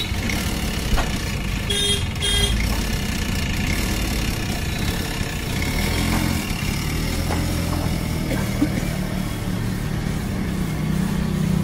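Road traffic running steadily, with two short vehicle horn toots about two seconds in.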